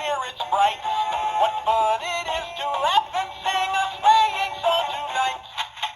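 Gemmy animatronic singing snowman playing its recorded Christmas song through its small built-in speaker: a male voice singing over music, thin and tinny, stopping about five and a half seconds in.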